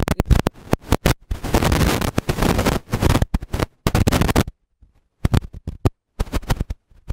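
Harsh crackling static from a distorted microphone feed, in bursts that cut in and out sharply, with short silent gaps in the second half.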